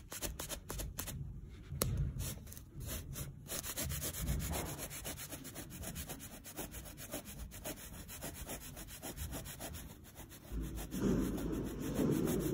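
Plastic scraper rubbing and scraping at chewing gum stuck in short-pile carpet, in quick repeated strokes. About eleven seconds in, a louder low rumble joins the scraping.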